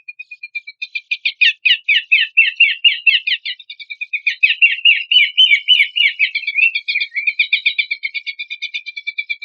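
Pelanduk semak (a babbler) singing a long run of rapid repeated notes. It opens as a fast steady trill, swells about a second in into a louder rippling chatter of quick falling notes, and settles back into a steady fast trill near the end.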